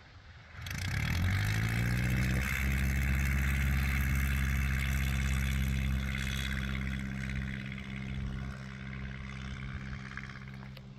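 Kitfox STi light aircraft's engine and propeller at takeoff power, coming in suddenly about a second in and rising in pitch as the throttle opens, then holding steady. It fades slowly as the plane climbs away.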